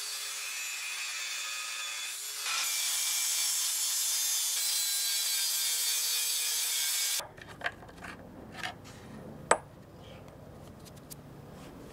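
Hand-held angle grinder cutting metal clamped in a bench vise, a hissing grind over the motor's tone, which steps up in pitch and gets louder about two and a half seconds in. The grinding cuts off abruptly about seven seconds in, leaving light clicks and knocks with one sharp click near the end.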